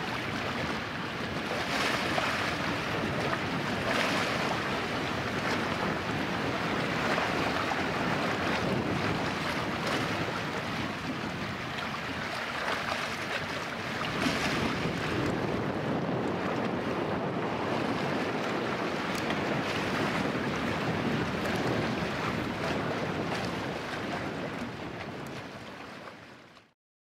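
Wind buffeting the microphone over the steady wash of sea waves, a rushing noise that fades out near the end.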